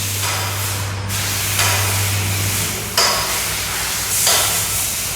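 A steady hiss that changes character abruptly a few times, with a low hum that fades out about halfway through.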